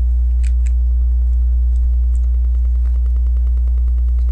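Steady low electrical hum, with a few faint clicks of plastic LEGO pieces being handled and pressed together, about half a second in and again around two seconds in.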